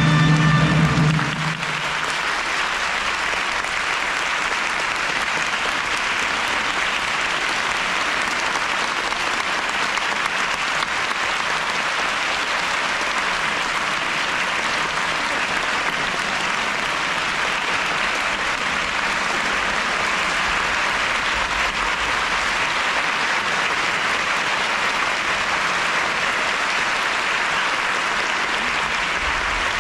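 Large theatre audience applauding steadily for the cast's curtain call. The closing orchestral music ends about a second in, leaving only the applause.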